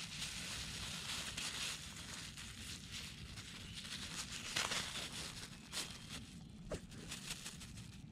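Thin plastic dog poop bag crinkling as its neck is twisted and tied into a knot, with a few sharper crackles about halfway through.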